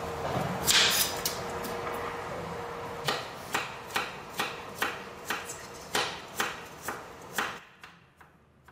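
Kitchen knife chopping a carrot into strips on a plastic cutting board: about ten even strokes, roughly two a second, starting about three seconds in and stopping shortly before the end.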